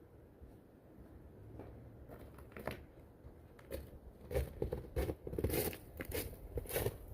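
Irregular crunching, crackling and small knocks, like debris being shifted or trodden on. They start faint and grow louder and busier about four seconds in.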